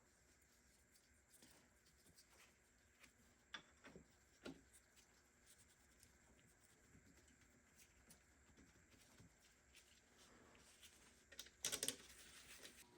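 Near silence with a few faint, light clicks and knocks from parts being handled, and a brief rustle near the end.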